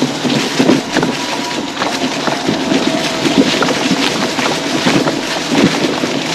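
High-speed mobility scooter riding over an off-road pine-needle forest trail: its tyres crackle and rattle over the ground with a constant run of small clicks and knocks. A faint steady whine runs underneath.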